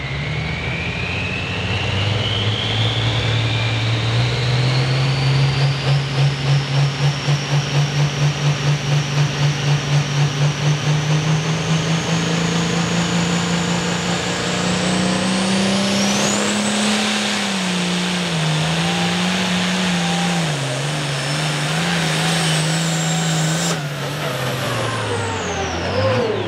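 International Harvester pulling tractor's engine running hard, with a high whine that climbs steadily in pitch for most of the time. The engine note throbs for a few seconds, then rises and wavers, and falls away near the end.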